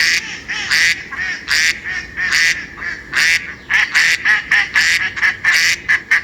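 Duck quacking: a rapid run of loud, repeated quacks, about two to three a second.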